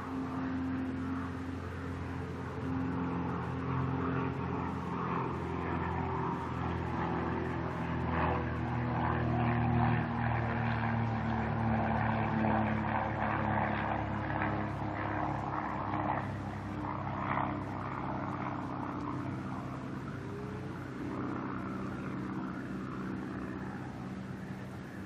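Propeller-driven airplane flying overhead: the engine and propeller drone grows to its loudest about ten seconds in, its pitch sliding down as it passes, then slowly fades away.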